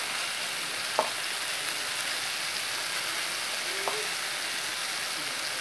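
Paneer pieces sizzling steadily in oil on a hot tawa over full flame as teriyaki sauce is spooned over them. There is a single light click about a second in.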